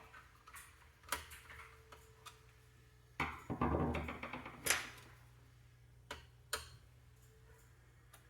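Scattered sharp plastic-and-metal clicks with a rustling scrape lasting about a second near the middle, from hands working on a computer's parts during a memory upgrade.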